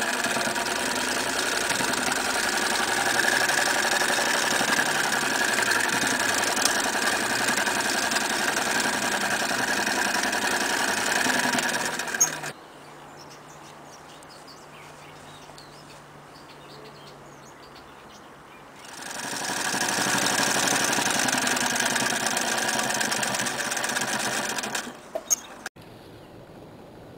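Singer 99K electric sewing machine running at a steady speed, stitching through denim with a fast even chatter of the needle mechanism. It stops about 12 seconds in, starts again about 19 seconds in, and stops about 25 seconds in with a couple of sharp clicks.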